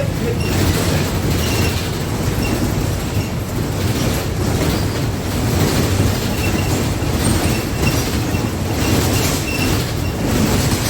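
Interior of a moving city bus: steady engine and road drone, with loose floor panels and fittings rattling and faint short squeaks from the body. The rattle comes from a floor that has worked loose.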